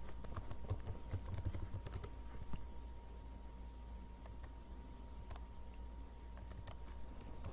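Computer keyboard typing and mouse clicks: a quick run of keystrokes in the first two and a half seconds, then a few scattered clicks. A faint steady hum sits underneath.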